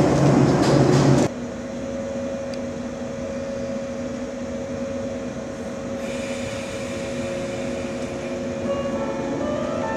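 Train running past loudly, cut off abruptly about a second in, followed by a steady low hum; a chime-like melody comes in near the end.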